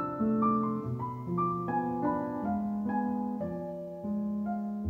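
Calm piano background music: a slow melody of single notes, a new one about every half second, over sustained lower notes.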